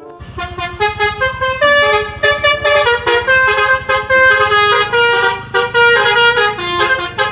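Telolet bus horn playing a fast melody of loud multi-tone horn notes, stepping up and down in pitch, over a low steady rumble.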